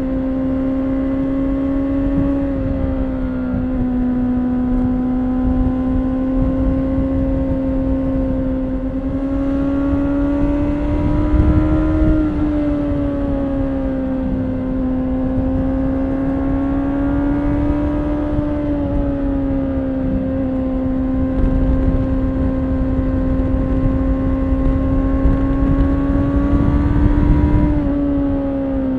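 2013 Honda CBR600RR's inline-four engine through its stock exhaust, heard from the rider's position, running at fairly steady revs under way. The pitch drifts gently up and down a few times with the throttle, easing off slightly near the end.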